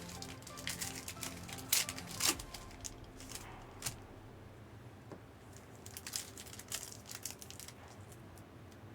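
Crinkling and crackling of trading card pack wrappers and cards being handled, in scattered bursts that thin out after about four seconds, over faint background music.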